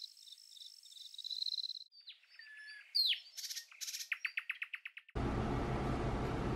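A nature sound effect: crickets chirping in a steady pulsing rhythm, then birds chirping and trilling. About five seconds in, a glass electric kettle starts heating water with a steady rumbling hiss.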